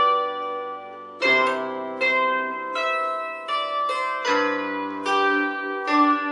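A bandura played solo: plucked melody notes and chords, each ringing out and fading, a new one about every half second, with low bass strings sounding under some of them.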